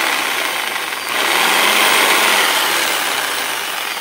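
Ozito JSG 442VK corded variable-speed jigsaw motor running unloaded, its reciprocating drive making a steady mechanical run. It drops briefly about a second in, picks up again, then eases off near the end. The motor is still strong and in working order.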